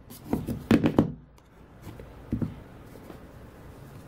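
Hands handling power banks on a desk: a few light knocks and taps in the first second and one more soft knock a little past the middle, then quiet handling and faint room noise.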